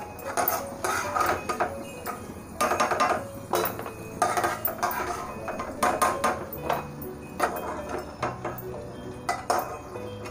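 A perforated steel skimmer scraping and clinking against a kadhai and a steel plate as fried cashews and almonds are scooped out and tipped onto the plate: irregular taps and knocks, several a second at times.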